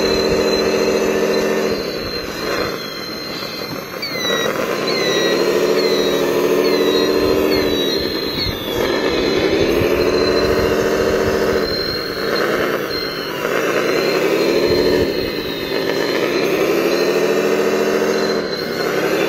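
Radio-controlled wheel loader's electric motors and gearing whining at a steady pitch. The whine sags and climbs back again several times as the loader works into the sand pile and backs out.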